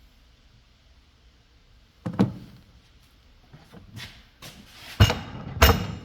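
Hard knocks and thunks: two about two seconds in, then several louder ones close together in the last two seconds.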